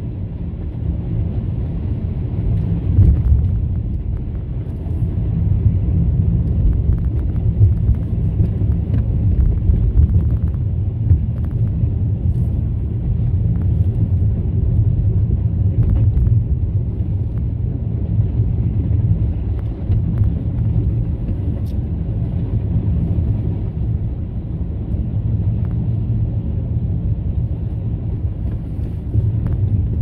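A car being driven, heard from inside the cabin: a steady low rumble of engine and tyre noise on the road.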